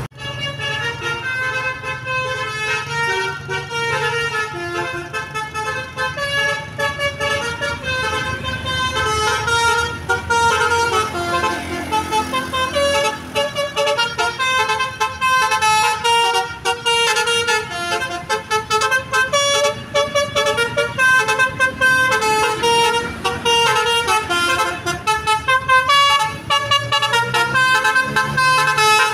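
Basuri V3 telolet horn, a multi-tone musical bus horn, playing a fast melody of short chord-like notes that change pitch in quick steps, with no pause; it starts abruptly.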